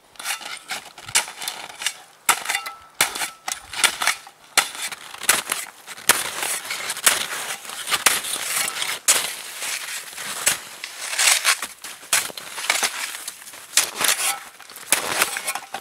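Aluminum snow shovel chopping and scraping into crusty, frozen snow: a run of irregular, sharp crunching strokes, about one or two a second, as blocks of hard crust are cut out.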